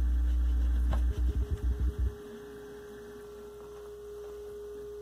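Velodyne F-1200-b powered subwoofer playing a very low, steady sine tone from a signal generator, without running away into oscillation. About a second in, the tone stutters on and off several times. Just after two seconds it gives way to a quieter, higher, steady tone.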